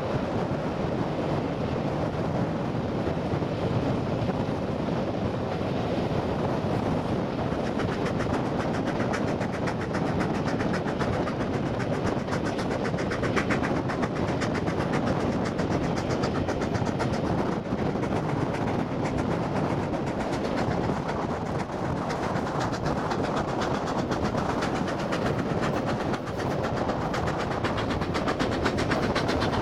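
Steam-hauled passenger train's carriages running steadily over the track, a continuous rumble and clatter of wheels on the rails, heard from an open carriage window.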